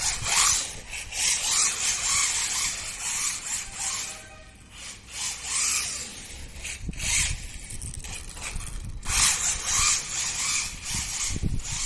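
WLToys 144001 RC car being driven in repeated bursts, its electric motor and new metal centre driveshaft gearing whining and rising and falling with the throttle, along with tyre noise, and a brief lull about four seconds in. The whine is taken as normal metal-on-metal gear noise rather than a fault.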